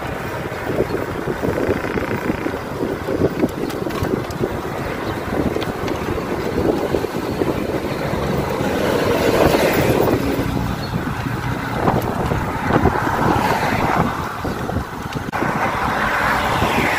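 Wind buffeting the microphone while riding along a road, with motor traffic running past; the traffic swells about nine seconds in and again a few seconds later.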